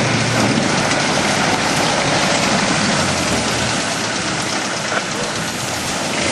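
An engine running steadily under a dense hiss.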